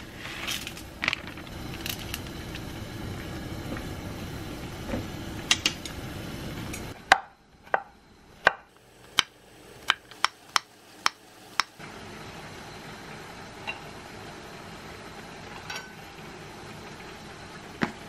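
Broth simmering in a pan with a few light clicks, then a knife chopping zucchini on a wooden cutting board: about nine sharp knocks over some four seconds.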